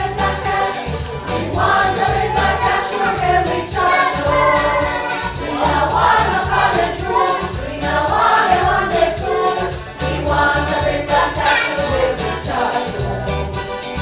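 A choir singing a song with band accompaniment, over a steady bass line and beat.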